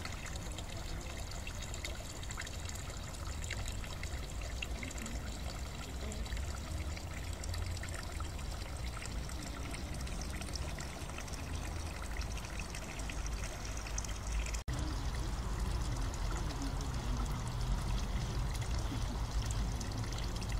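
Small garden fountain: a thin stream of water pouring from a stone cherub's jar into a lily pond, a steady trickle and splash. About two thirds of the way through the sound breaks off for an instant, then comes back a little louder.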